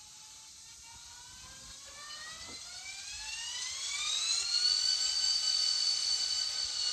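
Sound decoder in an N scale EMD GP30B model playing its diesel start-up sound through the model's small speaker: a whine rising in pitch and growing louder over about four seconds, then holding steady.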